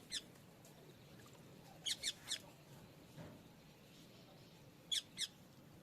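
A small bird chirping in short, high calls, in clusters of one to three, a few seconds apart.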